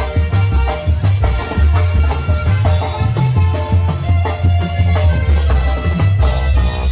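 Live tamborazo band music: saxophone melody over a steady beat on bass drum and snare, with a pulsing low bass line.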